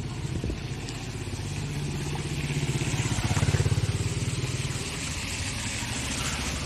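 Suzuki motorcycle riding through shallow floodwater and passing close by. Its engine grows louder to a peak a little past the middle and then eases off, with a hiss of tyres through water over the loudest part.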